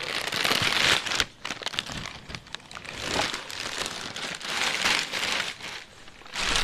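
Thin plastic bag wrapped around a flat-screen TV crinkling and rustling as it is handled and pulled off, in several bursts about a second long.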